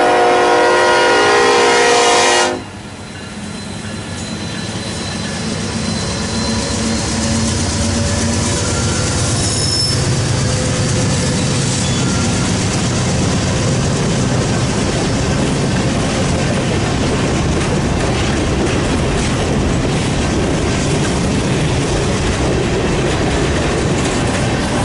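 Diesel locomotive horn blowing one loud chord that cuts off sharply about two and a half seconds in. Then comes the steady rumble of a freight train passing close by: locomotives and then rolling freight cars, their wheels clattering on the rails. The horn is from Norfolk Southern's 'Reading Lines' heritage unit 1067, an EMD SD70ACe.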